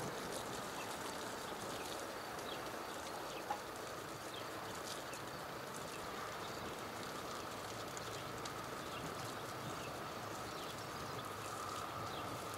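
Outdoor ambience at a rural level crossing with its barriers down: birds chirping faintly over a steady background hiss, and a faint steady high hum that grows a little louder near the end. One sharp click about three and a half seconds in.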